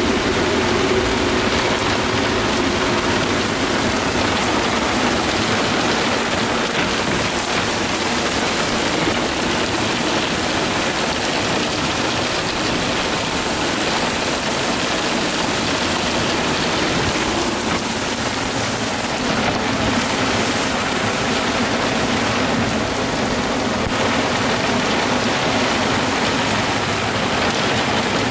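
Heavy rain driven by strong wind onto a sailboat's deck in a squall: a steady, dense hiss.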